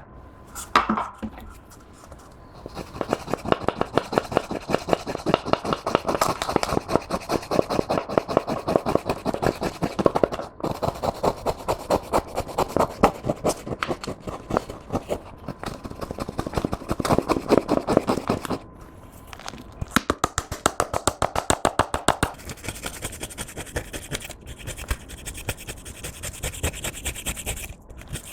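Clear slime being squished and kneaded by hand, giving a dense run of rapid sticky clicks and pops that starts about two seconds in.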